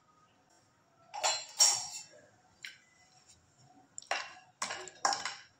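A short clatter of kitchenware about a second in, then a wooden spoon stirring almonds and cashews roasting in ghee in a stainless-steel kadhai, scraping strokes about two a second.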